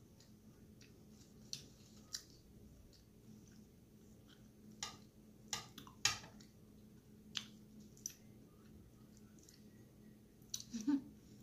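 Metal knife and fork clicking and scraping on a plate as chicken is cut, with soft chewing sounds. The clicks come irregularly, about a dozen in all, with a small cluster near the end.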